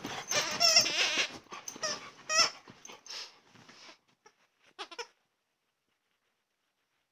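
A dog making wavering high-pitched whining cries in play, loudest about one second in and again at about two and a half seconds; the sounds die off about five seconds in.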